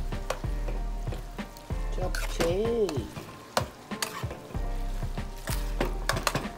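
Glass noodles, pork and vegetables being stir-fried for japchae, sizzling in the pan while a metal spoon tosses them, with repeated clicks and scrapes of metal against the pan. A short pitched sound rises and falls about halfway through.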